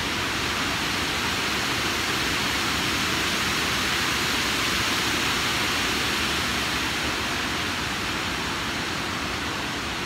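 Water pouring over a reservoir dam's stepped spillway: a steady rush of falling water, slightly louder around the middle and easing a little near the end.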